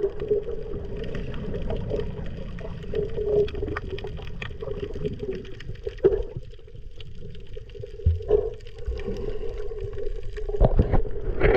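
Muffled underwater sound of a swimmer's strokes and kicks churning water and bubbles, heard by a submerged camera, with scattered clicks and a few dull thumps over a steady low drone. The churning grows louder near the end as the legs kick hard beside the camera.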